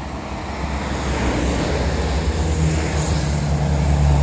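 A heavy vehicle's engine running, growing steadily louder as it approaches along the road, over road traffic noise.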